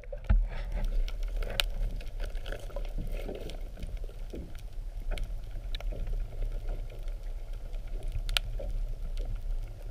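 Muffled underwater sound heard through a submerged camera housing: a steady low hum under a soft wash of moving water, with scattered light clicks and taps, two of them sharper, about a second and a half in and near the end.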